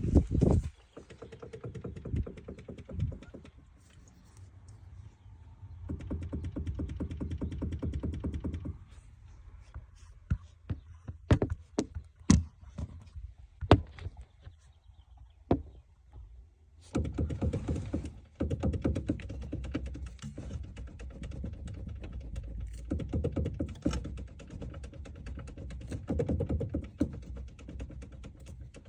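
Knocking from a Volkswagen Caddy's steering column: irregular sharp knocks, most of them in the middle of the stretch, over a low rumble that comes and goes.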